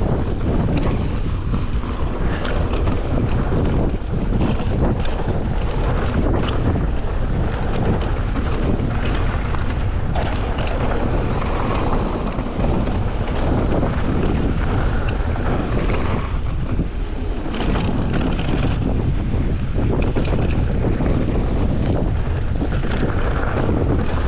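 Steady wind noise buffeting the microphone of a mountain-biking ride, with scattered clicks and knocks from the bike over the trail.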